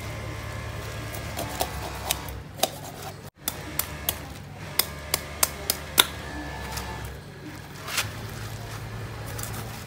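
Kitchen knife cutting up a whole raw chicken: a series of sharp cracks and taps as the blade goes through the carcass, over a steady low hum.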